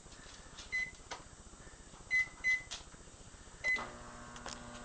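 Microwave oven keypad beeping four short times as it is set, then the oven starting up with a steady hum about four seconds in.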